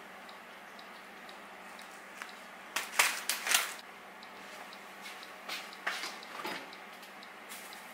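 Foil tea pouch rustling as it is handled and closed, loudest in a short cluster about three seconds in, with a few softer rustles and light knocks a couple of seconds later.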